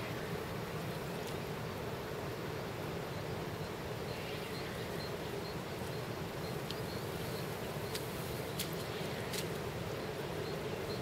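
Steady riverside background noise: a constant hiss with a low, even hum, and a few faint sharp clicks about eight and nine seconds in.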